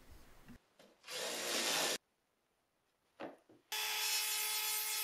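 A cordless drill's countersink bit grinds briefly into white oak about a second in. After a short gap, a trim router starts near the end and runs with a steady whine as it trims glued-in dowels flush.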